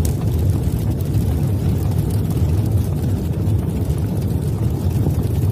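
Deep, steady rumbling sound effect of a logo-intro animation, a smoke-and-fire burst.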